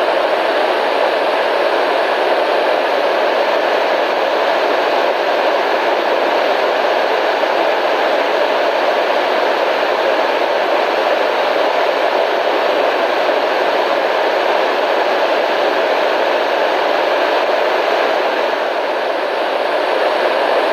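Steady radio static hiss, an even rushing noise strongest in the middle range, with no clicks, tones or changes.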